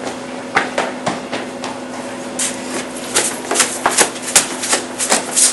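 A run of irregular sharp taps and knocks, several a second and thicker in the second half, over a steady low hum.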